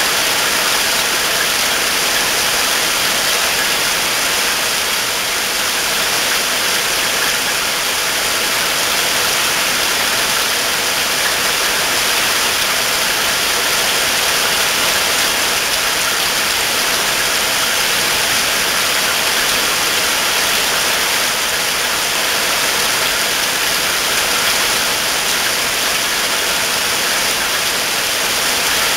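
Heavy rain falling steadily, a dense even hiss with no separate drops or other events standing out.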